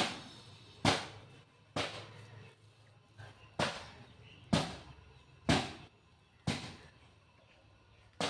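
Sharp percussive hits about once a second, each dying away quickly, in an even rhythm.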